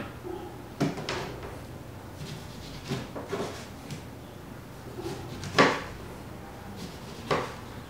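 Kitchen knife slicing an orange into rounds on a cutting board: about six separate knocks of the blade through the fruit onto the board, the loudest a little past halfway.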